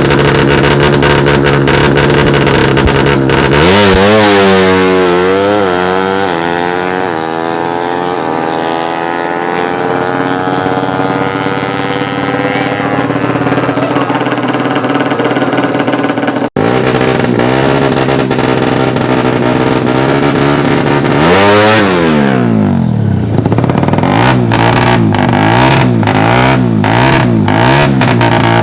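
Drag-race motorcycle engine, a Suzuki Satria FU 147 cc single, revving hard, its pitch climbing and dropping in steps as it shifts up through the gears. It cuts off abruptly about two-thirds of the way through, then another run sweeps sharply up and back down before settling into a steadier engine note.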